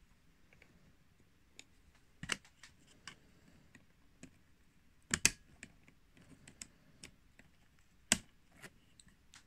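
Small metallic clicks and ticks of needle-nose pliers pressing a spring clip onto a roller chain's connecting link. There are three sharper clicks about three seconds apart, the middle one loudest, with faint ticks between.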